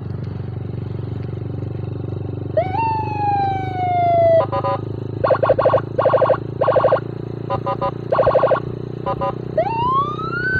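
Senken 60-watt electronic siren module sounding through a horn loudspeaker: a rising-then-falling wail about two and a half seconds in, then clusters of short, buzzy horn blasts, then another wail near the end that rises higher and falls slowly. A steady low hum runs underneath.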